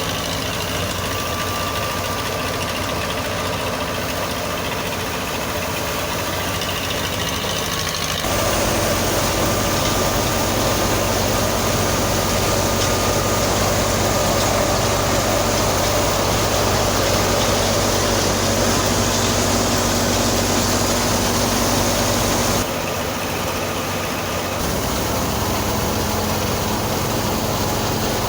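Farm harvesting machinery engine running steadily, with an even low hum; the sound changes abruptly, growing louder about eight seconds in and dropping back about twenty-three seconds in.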